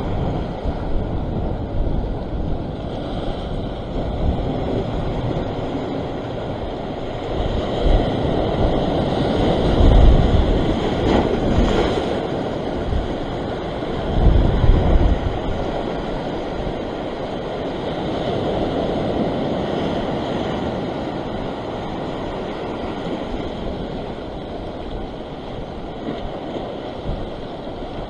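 Sea waves breaking and washing over a rock ledge, with wind buffeting the microphone. It grows louder in surges about ten seconds in and again around fifteen seconds.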